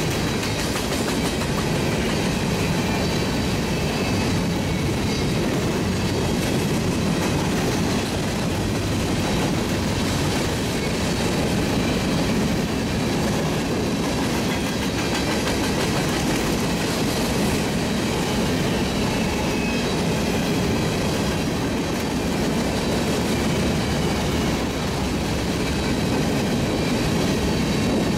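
Covered hopper cars of a freight grain train rolling past at steady speed: the continuous rumble and clatter of steel wheels on the rails.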